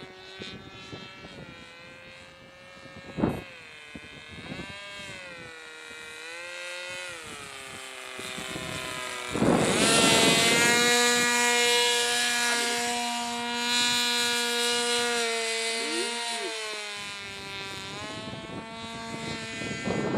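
Radio-controlled model biplane's motor and propeller whining, the pitch rising and falling with the throttle. About nine seconds in it gets suddenly much louder as the plane makes a low pass, then fades back. A single sharp click sounds about three seconds in.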